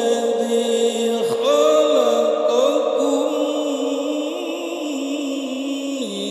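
Solo male voice reciting the Quran in the melodic tilawah style, amplified through a handheld microphone, holding long notes with ornamented turns. About a second in the voice slides down and breaks off, then comes back on a higher held note.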